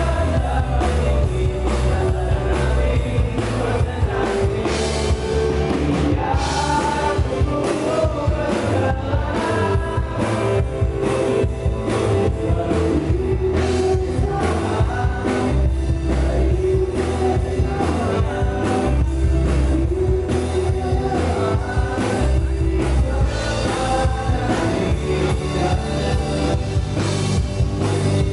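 A rock band playing live: a lead vocal sung over a drum kit, bass and guitar, at a steady loud level throughout.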